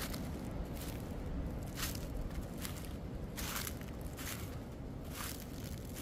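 Footsteps walking on the forest floor at an even pace, a little more than one step a second, over the low rumble of a strong wind.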